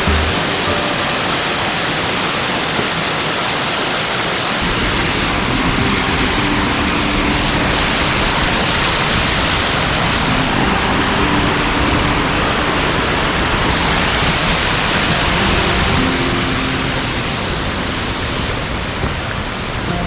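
Steady, loud rush of a waterfall, with background music playing faintly underneath, its notes coming and going.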